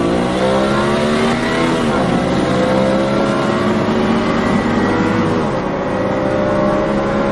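Car engine running hard, its pitch dipping briefly twice early on and then climbing slowly and steadily, as when accelerating.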